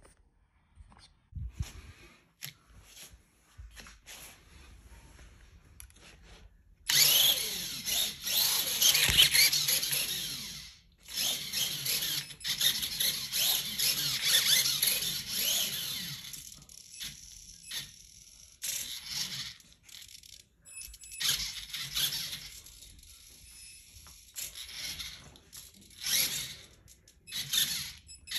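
Kyosho Mini-Z Buggy radio-controlled car driven on a wooden floor: its small electric motor whines and its tyres squeal in bursts as it accelerates and turns. The bursts start about a quarter of the way in, after some faint clicks.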